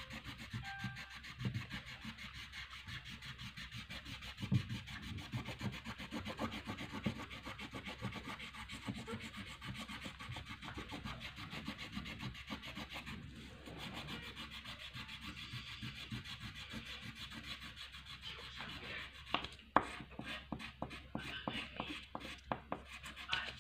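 Red wax crayon scribbled hard back and forth on paper, a fast run of scratchy rubbing strokes with a couple of brief pauses.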